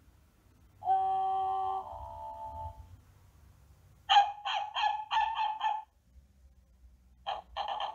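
Little Tikes playhouse's electronic toy doorbell, its button pressed, playing its sound effects. First comes a held electronic tone about a second in, fading out. Then, about four seconds in, comes a rapid run of about six short pitched notes, with more short notes starting near the end.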